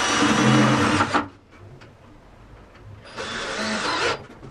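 Cordless drill driving screws into a metal drywall framing profile: two runs of the motor, about a second each, one at the start and one about three seconds in.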